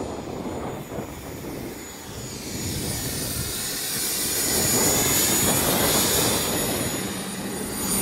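Turbine helicopter running on the ground with its rotor turning: a steady rush of engine and rotor noise with a thin, steady high whine, growing louder toward the middle.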